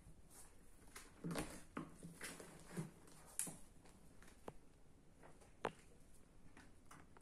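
Faint rustling and light clicks of cats shifting about in a cardboard box, mostly in a short flurry about a second in, with one sharper click later.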